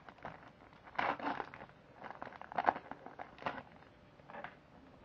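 Plastic wrapper of a Pokémon trading card pack crinkling and tearing as it is opened, in several irregular rustles, the loudest about a second in and again past the middle.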